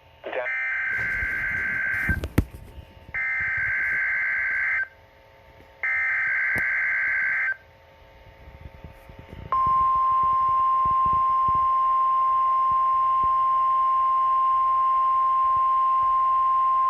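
NOAA Weather Radio emergency alert for a tornado watch: three identical bursts of screechy digital data (the SAME alert header, sent three times), each about a second and a half long with short gaps between them, and a crackle of static after the first. About halfway through comes the long, steady single-pitch warning alarm tone that announces the alert.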